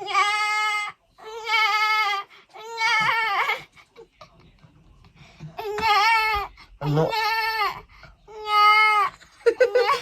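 Six high, drawn-out, wavering cry-like animal calls, about a second each, in two sets of three with a short pause between the sets.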